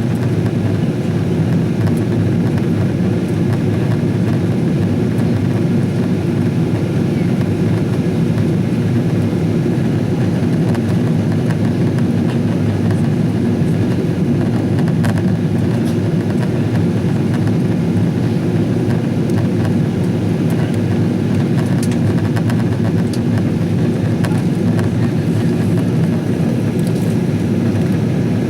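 Steady low drone inside the cabin of a Boeing 777-200ER airliner in flight: engine and airflow noise heard from a passenger seat, even and unchanging.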